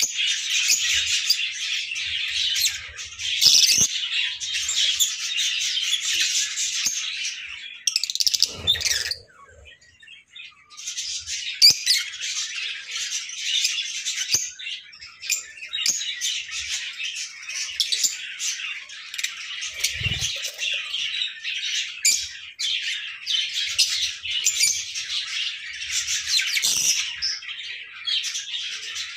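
A flock of lovebirds chattering with dense, high-pitched chirps and squawks. The chatter drops away for about two seconds a third of the way in, and a single low thump comes about two-thirds in.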